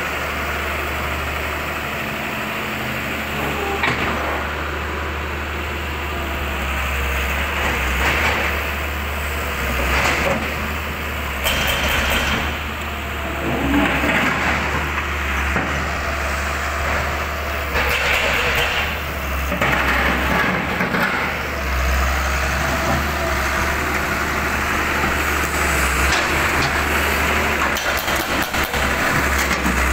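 Diesel engine of a Hitachi wheeled excavator running steadily as a low hum, with irregular bursts of clatter and noise over it.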